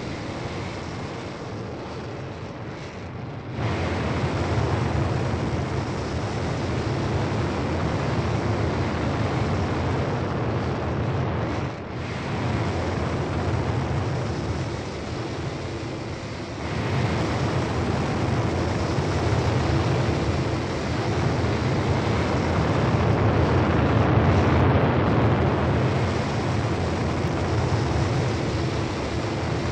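Steady rumble of a flight sound effect, like an aircraft passing, jumping abruptly louder about four seconds in and again about seventeen seconds in.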